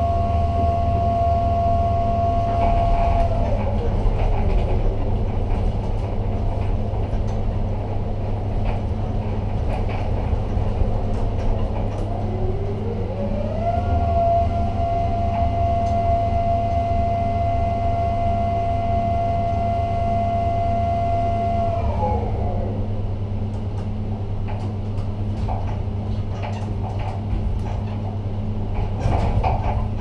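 Electric drives of a ship-to-shore container gantry crane heard from inside the operator's cab: a steady low hum under a high motor whine. The whine glides down about three seconds in as a motion slows, climbs again around thirteen seconds, holds steady, and winds down around twenty-two seconds. A few clicks and rattles come near the end.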